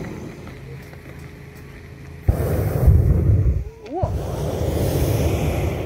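Hot-air balloon propane burner firing: a sudden loud blast about two seconds in, a short break, then a second blast that cuts off near the end.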